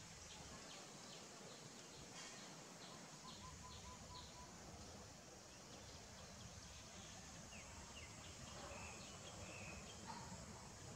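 Faint outdoor ambience: a soft steady hiss with short high chirps from small wild creatures, repeating quickly over the first few seconds, then a few scattered chirps later.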